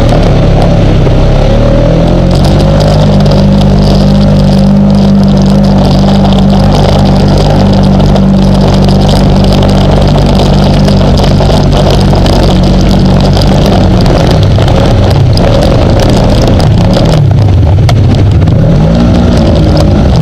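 ATV engine running at a steady throttle as the quad fords a creek, then revving up and down several times near the end, with water rushing and splashing around the wheels.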